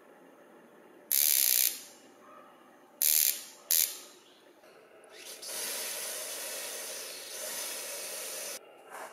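Spark plug, used as a gas turbine igniter, sparking in three short loud hissing bursts in the first four seconds. Then comes a longer steady run of about three seconds that cuts off suddenly.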